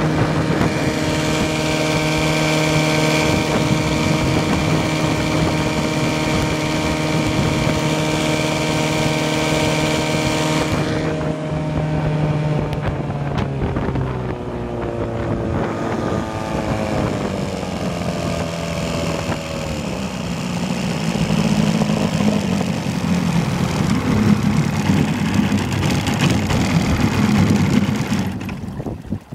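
Vikhr-30 two-cylinder two-stroke outboard motor running under way at a steady speed, with wind and water wash. About eleven seconds in it is throttled back: its pitch falls over the next few seconds and it runs slower, and the sound falls away near the end.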